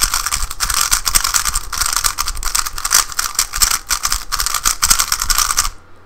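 An untreated, lightly lubed, stickerless MoYu GTS2 3x3 speedcube being turned rapidly: a dense, continuous run of quick plastic clicks and clacks, stopping just before the end.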